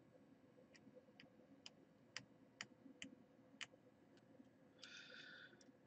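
Faint sharp clicks, about two a second, as a blade cuts along the edge of the thin metal shield on an iPhone 6s logic board, with a brief scrape about five seconds in.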